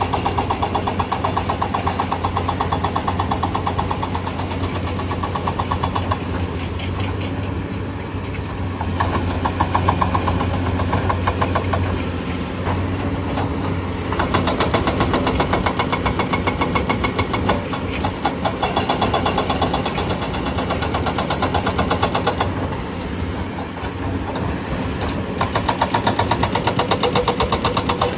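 Hydraulic breaker on a Komatsu PC200 excavator hammering rock, a rapid steady pounding in long runs with brief letups, over the excavator's diesel engine running.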